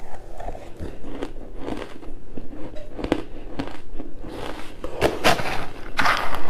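Pink ice being bitten and chewed, close-miked: irregular crisp crunches and cracks. The crunching grows denser and loudest near the end.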